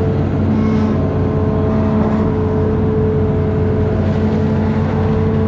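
Amphibious excavator's diesel engine running at a steady pitch.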